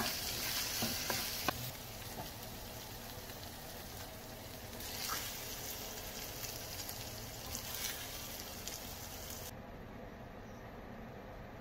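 Ground meat (giniling) frying in a nonstick pan, sizzling as a plastic spatula stirs and scrapes it, with a few sharp clicks of the spatula against the pan. The sizzle swells again around five to eight seconds in, then cuts off abruptly about nine and a half seconds in, leaving only a faint background hiss.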